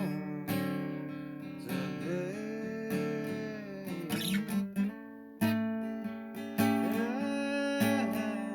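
Acoustic guitar music, strummed chords with sliding and bent notes.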